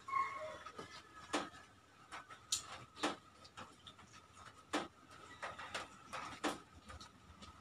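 People eating by hand at a mukbang meal: irregular sharp mouth clicks and smacks from chewing, about one a second.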